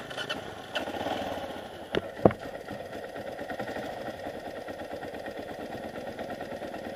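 Dirt bike engine running and then settling to a steady idle, with two sharp knocks about two seconds in.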